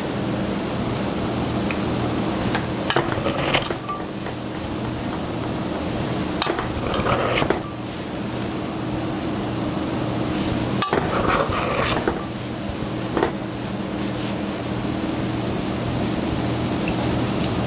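Metal spoon scraping and clinking against a stainless steel mixing bowl as stiff divinity candy is scooped out, with a few sharp clinks spaced several seconds apart, over a steady background hiss.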